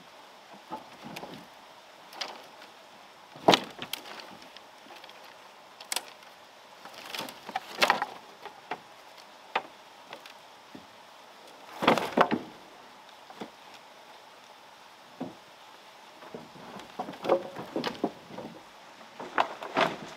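Wooden poles and bamboo being shifted and pulled from a pile, knocking and clattering against each other in irregular knocks and thuds with quiet gaps between.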